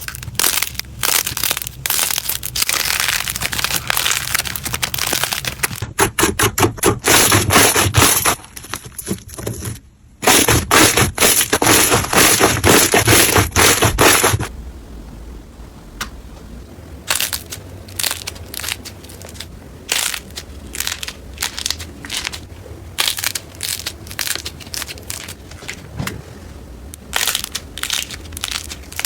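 Slime being squeezed and pressed by hand, giving a dense run of crackling and popping for about the first half. After that it thins out to quieter, scattered clicks and pops.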